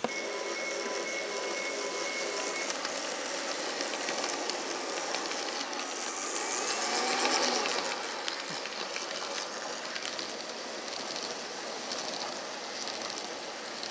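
N scale model freight train rolling past, its wheels giving a steady hiss with fine clicking over the rail joints. It grows louder about seven seconds in as the diesel locomotive passes close by, then the hopper and tank cars roll on.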